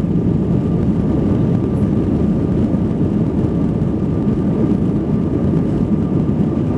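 Steady cabin noise inside an Airbus A319 moving slowly on the ground: an even low rumble from the engines and rolling airframe, with a faint steady whine above it.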